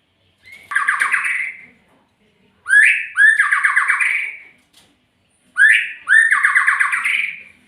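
A murai, a Copsychus songbird, giving three harsh, fast rattling calls, the second and third each opening with a quick rising note.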